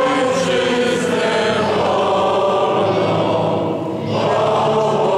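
A group of voices singing a slow song in long held notes, with a short break between phrases about four seconds in.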